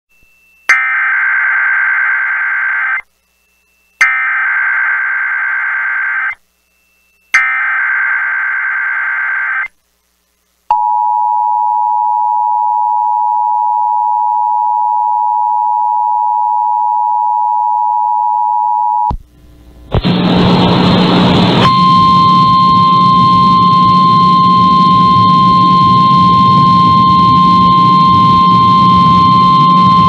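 Emergency Alert System SAME header on NOAA Weather Radio for a required monthly test: three harsh digital data bursts of about two seconds each, a second apart. Then the weather radio's steady 1050 Hz alert tone, held for about eight seconds. After a short gap comes a loud hiss with a low hum, joined a couple of seconds later by a steady high tone.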